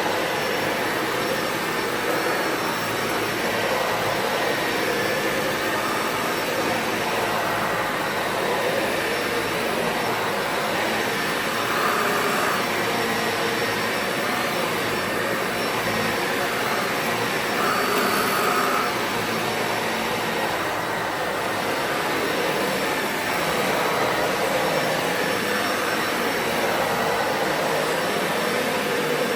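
Dyson Ball Animal 2 Total Clean upright vacuum running steadily while vacuuming: a constant rush of air with a faint steady whine.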